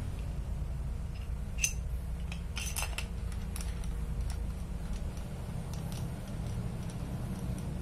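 Light metallic clicks and clinks of a Mitsubishi 6D16 connecting rod, its bearing cap and bolts being handled and fitted together by hand. The sharpest click comes about one and a half seconds in, then a quick cluster around two and a half to three seconds, then a few fainter taps. A steady low rumble runs underneath.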